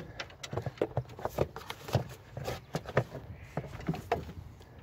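Irregular plastic clicks and knocks as the intake hose and the plastic engine cover or air box of a VW Polo 6R are pulled loose and lifted off by hand.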